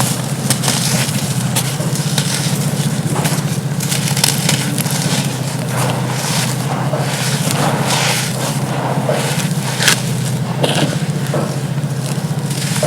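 Dry charcoal chunks being crushed and crumbled, a continuous run of gritty crunches and crackles over a steady low hum.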